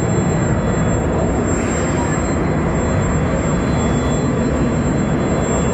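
Jet engines of a twin-engine military transport aircraft running at high power as it climbs and banks away overhead: a loud, steady jet noise.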